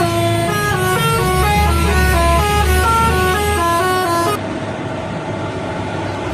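Indonesian bus telolet horn, a set of air horns sounding a tune of quick stepped notes, with the bus's deep engine hum under it. About four seconds in the tune stops suddenly, leaving quieter road noise.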